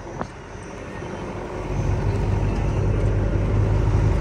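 Low engine and road rumble of the livestock truck, swelling about a second and a half in and then holding steady.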